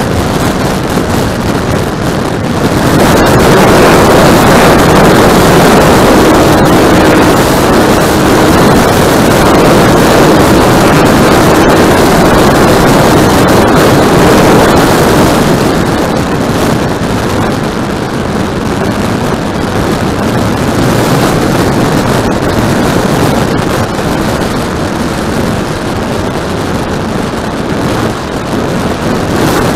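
Radio-controlled model airplane in flight, heard from its onboard camera: the propeller motor running under a heavy rush of wind over the microphone. It gets louder about three seconds in and eases off after about sixteen seconds.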